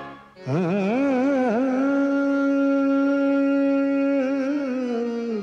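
Background music in Indian classical style: one melodic line with quick wavering ornaments that settles, about two seconds in, into a long steady held note.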